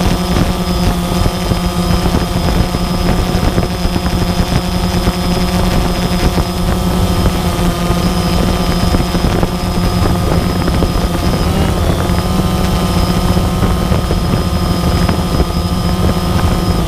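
Multirotor drone's motors and propellers whining steadily, with a thin high whine over a deeper hum and some wind noise. The pitch briefly dips and then rises, about twelve seconds in.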